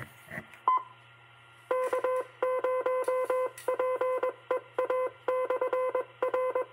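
Morse code keyed over an FM amateur radio net: a single mid-pitched tone sent in dashes and dots from about two seconds in, after one short higher beep. It is the on-air CW send-off of a final call for a silent key.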